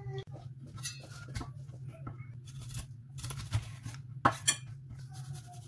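Kitchen clatter of scattered knocks and clinks over a steady low hum, with two louder sharp strikes about four seconds in: a cleaver chopping raw chicken on a wooden end-grain board.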